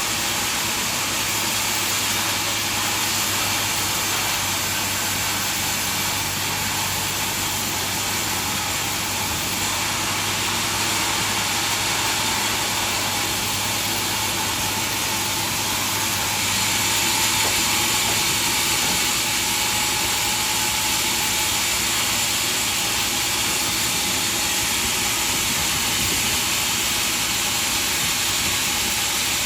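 Sawmill machinery running steadily: a continuous hiss with a low hum that drops away about halfway through.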